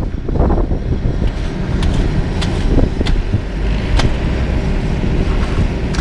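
Heavy diesel equipment, a LeeBoy 8515B asphalt paver with a dump truck at its hopper, running steadily during paving, with a few short sharp clinks over the engine noise.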